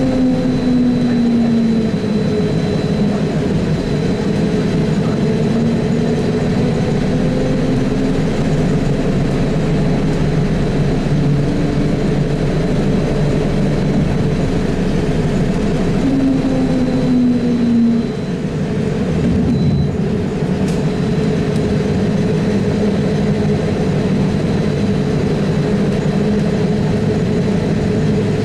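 Trolza-5275.03 "Optima" trolleybus running, heard inside the cabin: continuous road and running noise with an electric traction motor hum that slides down and up in pitch as the trolleybus slows and picks up speed, over a thin steady high whistle. A brief lull comes a little past halfway, followed by a single click.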